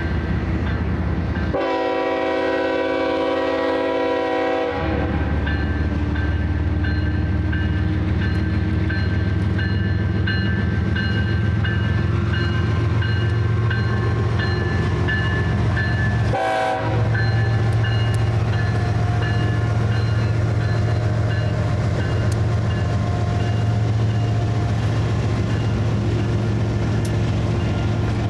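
BNSF diesel locomotives leading a train of open-top coal cars pass close by with a deep steady engine drone. The air horn sounds one long blast about two seconds in and a short one about halfway through, and a high ringing tone repeats on and off after the first blast.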